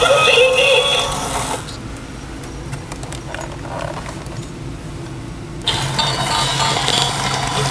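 Animated Pooh and Tigger Christmas train toy: its electronic music stops about a second and a half in. A few seconds of quiet clicks and rustling follow, then the toy's small motor and gears start whirring again near the end.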